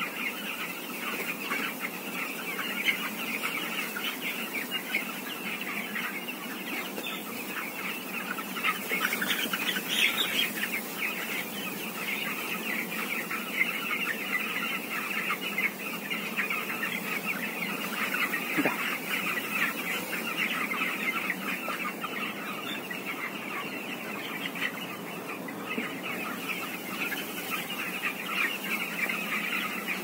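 A large flock of 13-day-old broiler chicks peeping and chirping continuously in a dense, overlapping chorus.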